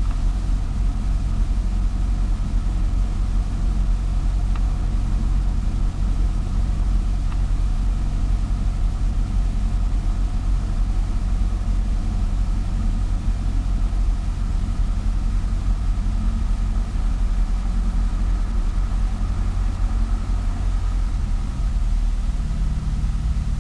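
Cessna 172S's four-cylinder Lycoming engine running steadily at low power, heard from inside the cockpit. Its pitch steps up slightly about 21 seconds in.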